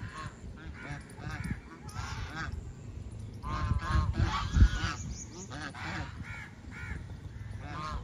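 A flock of domestic geese honking: many short calls overlapping one another, busiest about halfway through.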